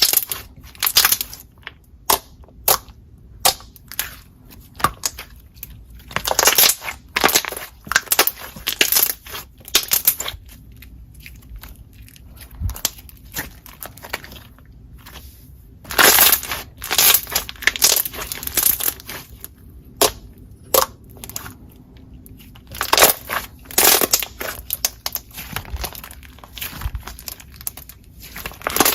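Thick, glossy slime being pressed, poked and stretched by hand, giving irregular runs of clicks and pops. There are a couple of quieter stretches, one in the middle and one about two-thirds of the way through.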